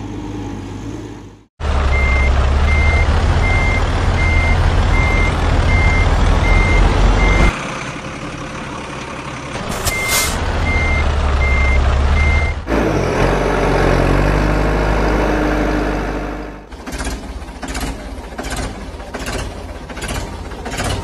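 Heavy truck sound effects: a diesel engine running loud with a reversing alarm beeping about twice a second, in two stretches. Near the end comes a rhythmic knocking, about two knocks a second.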